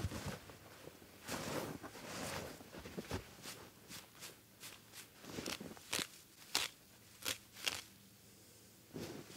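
Boots kicking and crunching in snow, then a string of sharp crackling tears and rustles, one or two a second, as handfuls of dry grass are pulled from under the snow.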